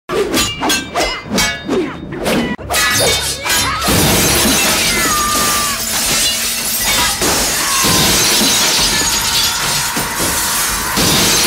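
A quick series of fight blows and swishes, then from about four seconds in a long, continuous shattering of glass panes, shards crashing and tinkling down.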